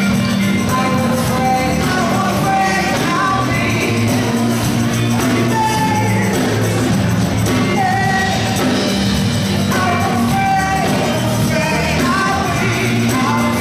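Live band playing a song: a singer over electric guitar, keyboards and drums, running steadily without a break.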